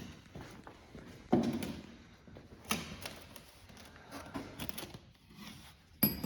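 Scattered knocks and clicks of objects being handled, with a sharp metallic clink that rings on near the end.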